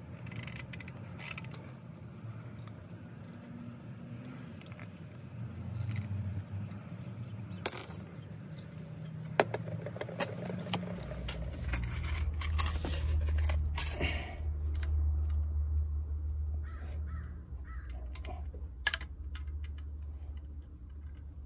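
Metal clinks, taps and a few sharp knocks as the cut-open shell and end cap of a stock Yamaha R6 muffler are handled and fitted back together by hand. A low steady hum comes in about halfway.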